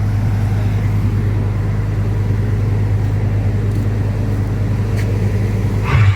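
Engine running steadily at a constant speed, a low, even hum with no change in pitch. Right at the end, a louder sound cuts in over it.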